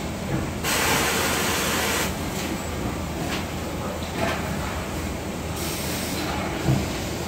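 Factory assembly-hall ambience: a steady hum and hiss of running equipment, with faint clatter of work at the benches and a short thump near the end.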